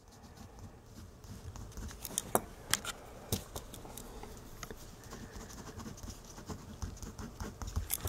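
Pen scratching on a sheet of paper as a word is handwritten, with scattered light clicks and paper-handling noises.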